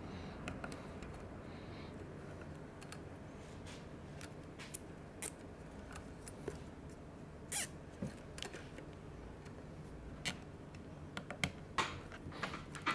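Scattered light clicks and small handling noises as a plastic cable tie is fitted and drawn tight around the rubber boot of an electric skateboard's drive shaft. The clicks come faster together near the end.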